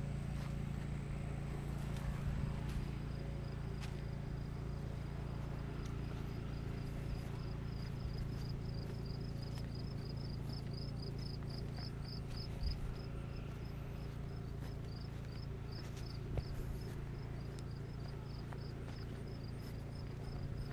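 A cricket chirping in short high pulses at an even pace, several a second, over a steady low rumble of outdoor background noise.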